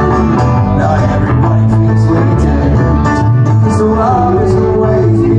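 Live folk band playing loudly: guitars strumming and picking over a steady beat, filling the room.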